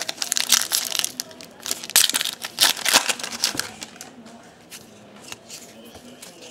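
Foil wrapper of a Topps baseball card pack crinkling and tearing as it is opened by hand, a dense run of crackles for about three seconds, then a few lighter rustles.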